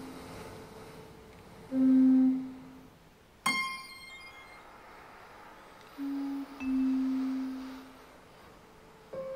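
Sparse contemporary chamber music: a bass recorder plays held low notes with almost no overtones, and a single bright metallic struck note, such as a vibraphone, rings out about a third of the way in. Another held higher tone enters near the end.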